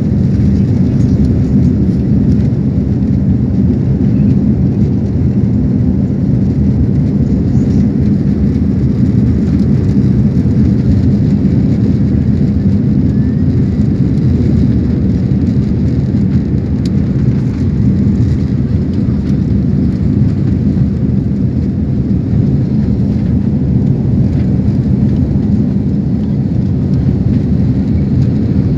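Steady, loud rumble of jet engines and rushing air heard inside an airliner cabin as the plane climbs after takeoff.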